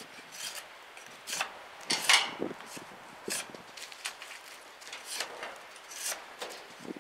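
A BHK Bushcrafter knife blade shaving bark off a wooden stick in short, irregular scraping strokes, the loudest about two seconds in.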